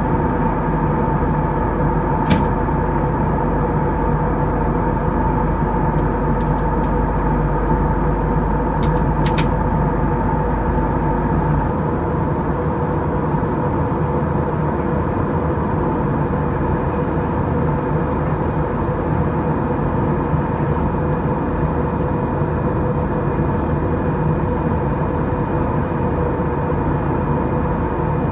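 Steady in-flight cabin noise of an Airbus A319 airliner, heard from inside the cabin: engine and airflow noise with a steady hum, and a couple of faint clicks near two and nine seconds in. The deepest rumble eases about twelve seconds in.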